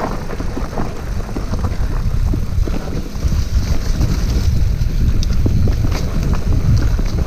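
Wind buffeting the microphone on a moving mountain bike, a steady low rumble, with scattered clicks and rattles from the bike rolling over rough dirt singletrack.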